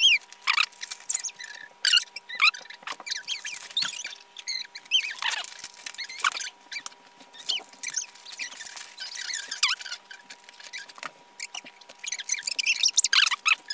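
Wrapping paper and thin plastic wrap crinkling and rustling in quick, irregular bursts as a small gift is unwrapped by hand.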